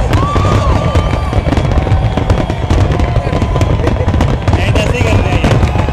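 Fireworks going off in quick, irregular succession: a dense crackle of small bursts over a deep rumble of booms.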